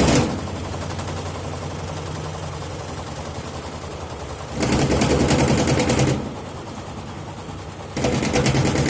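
Electrolux washing machine running with spells of loud, rapid rattling knocks over a steady hum. The knocking is from a hose inside the machine striking the cabinet after its retaining clip came loose.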